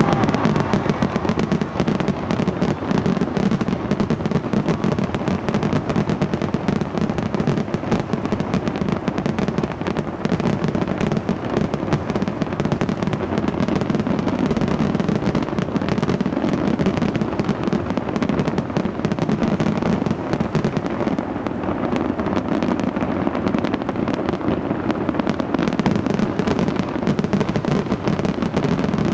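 Fireworks display going off in a dense, continuous barrage of bangs and crackles that doesn't let up.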